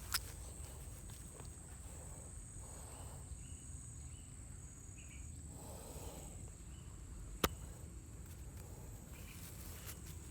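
Outdoor ambience dominated by a steady high-pitched insect drone, with soft rustles and two sharp clicks, one just after the start and one about seven and a half seconds in.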